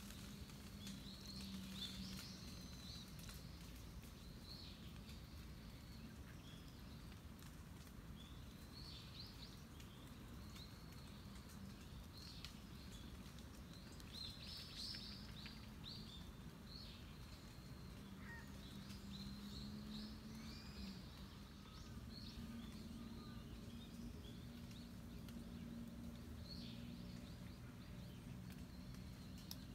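Faint outdoor ambience: small birds chirping and calling on and off, over a steady low rumble with a faint hum that comes and goes.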